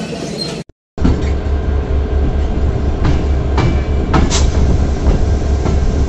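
Diesel locomotive running, heard close up from its side walkway: a strong, steady low engine throb under a wide rumble of running gear. A few sharp clicks from the wheels passing rail joints come about three to four seconds in. A brief dropout comes right before the throb starts.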